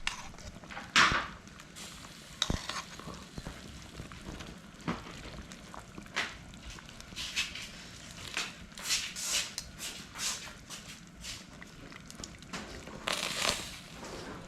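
Scattered clinks, knocks and scraping strokes of utensils against dishes or a pot, with a louder knock about a second in and a busier run of scrapes from about seven to ten seconds.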